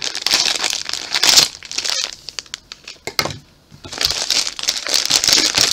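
Clear plastic wrapper of a Vault X binder crinkling and rustling as it is handled and pulled open, in two spells with a short lull a little past halfway.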